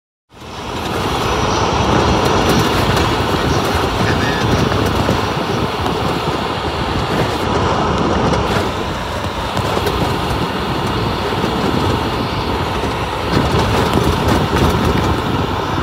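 Jeep driving on a rain-soaked road, heard from inside the cabin: a steady rumble of engine and tyres on wet pavement. It grows a little louder about thirteen seconds in as the Jeep goes through standing water and spray kicks up.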